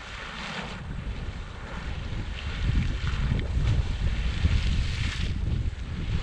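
Hot-spring geyser erupting, its water splashing and hissing in spurts, with wind buffeting the microphone as a low rumble that grows louder after about two and a half seconds.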